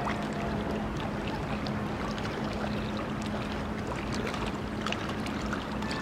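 River water lapping and splashing against the bank in small irregular slaps over a steady wash, with a steady low hum underneath.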